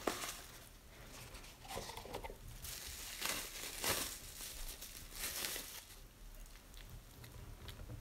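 Plastic bubble wrap crinkling in irregular bursts as it is pulled off a wristwatch, with a sharp click right at the start. It dies down to a few small ticks about six seconds in.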